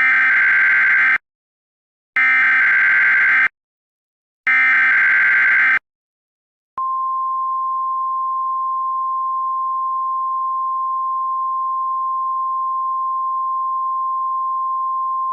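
Emergency Alert System SAME header: three bursts of screeching digital data, each about a second long with about a second between them. About seven seconds in, a steady single-pitched attention tone begins and holds, the alert signal that comes before a tornado warning message.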